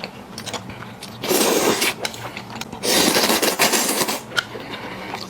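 A person slurping noodles in two long noisy pulls, the first about a second in and the second about three seconds in, with small wet clicks of eating between them.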